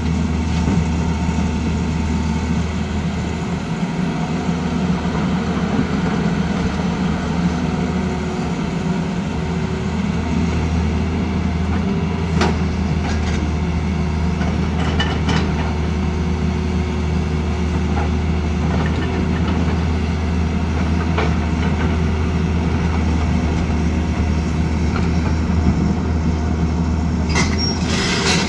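Tata Hitachi Zaxis 220 excavator's diesel engine running steadily under hydraulic load while it moves stone. A few sharp knocks of rock against the steel bucket come through it, with a quick cluster near the end.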